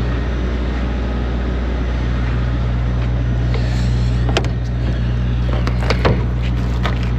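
Diesel engine idling with a steady low drone, with a few sharp clicks and knocks in the second half.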